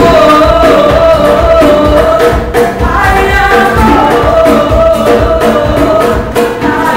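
Live acoustic band playing: a woman sings into a microphone over a strummed small acoustic guitar and a hand drum keeping a steady beat.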